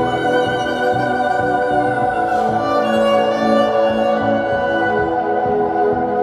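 Music played on bowed strings: a slow melody of long held notes.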